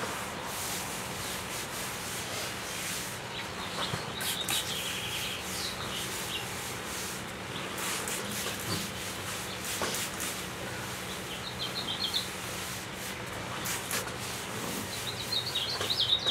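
A damp cloth rubbing and wiping across a sanded wooden tabletop, lifting the sanding dust with soapy water. Birds chirp briefly in the background a few times.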